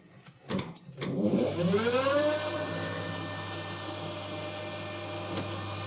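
Metal lathe spindle motor starting up for a finishing pass on 17-4PH stainless steel: a rising whine about a second in that levels off into a steady whine with a low hum and hiss underneath. A couple of short clicks come just before it starts.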